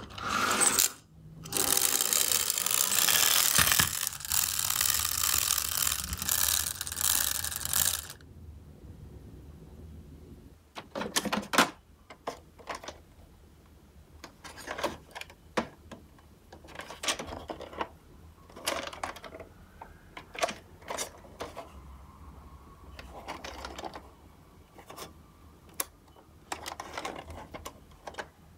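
Clockwork motor of a wind-up tin toy ambulance buzzing loudly as it runs for about seven seconds, then stopping suddenly. After that, scattered light clicks and knocks of plastic toy cars being handled.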